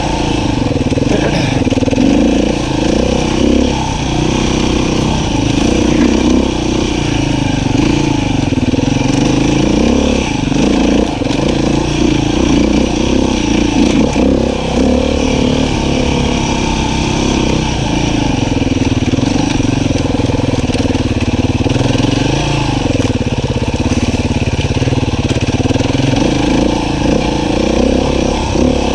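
Beta 500 RR-S dirt bike's single-cylinder four-stroke engine running continuously, its revs rising and falling again and again as the throttle is worked.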